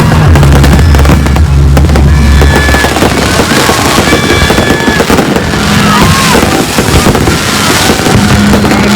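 New Year fireworks display: loud, dense bangs and crackles going off continuously, mixed with music that has a heavy bass.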